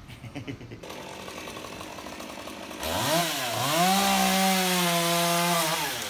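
Two-stroke chainsaw running low, then revved up twice about three seconds in and held at full throttle, cutting through the trunk of a tree top, dropping off near the end.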